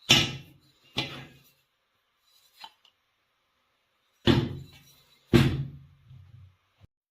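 Four sharp knocks of hard objects striking, each dying away quickly with a short ring: two about a second apart at the start, then two more about a second apart a little after the middle, with a faint click between them.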